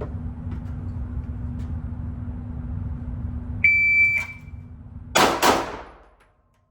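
Shot-timer start beep, a steady high tone lasting about half a second, then about a second later two pistol shots in quick succession, roughly a third of a second apart, echoing in an indoor range: a timed draw with a two-shot string. A steady low background noise runs under it until the shots.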